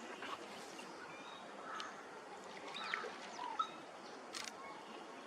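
Bar-headed geese calling: scattered short calls, some gliding in pitch, over a steady hiss. A sharp click comes about four and a half seconds in.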